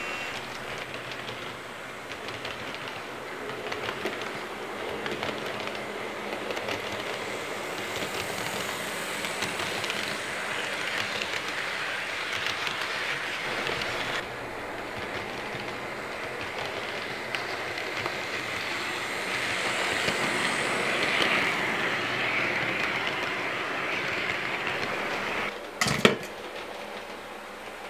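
HO-scale model train, a BNSF diesel locomotive model pulling freight cars, running on the layout track: a steady whirring rattle of the motor and wheels on the rails. There is one sharp click near the end.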